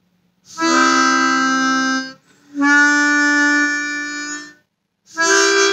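Easttop T16-64 brass-comb chromatic harmonica playing three held notes: two of about one and a half to two seconds each, then a third starting near the end.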